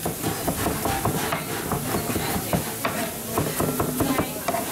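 Chef's knife rapidly chopping garlic on a plastic cutting board: a quick, uneven run of knife taps against the board.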